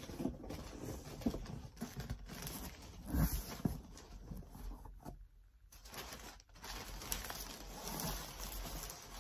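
Brown kraft packing paper rustling and crumpling as it is pulled out of a cardboard box by hand, with scattered handling clicks. A couple of louder thumps on the cardboard come a little past three seconds in.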